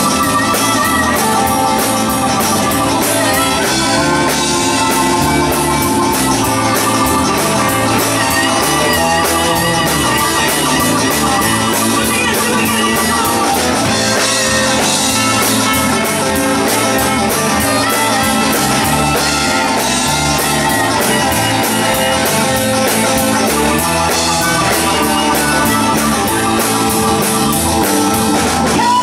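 Live rock band playing: electric guitars, bass, keys and drum kit over a steady beat.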